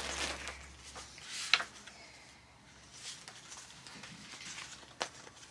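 Faint rustling of paper sheets being handled, with two short sharp clicks or taps, one about one and a half seconds in and one near the end.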